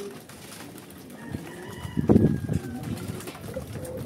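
Racing pigeons cooing as they feed at a grain trough, with light ticking of beaks pecking grain and one louder burst about two seconds in.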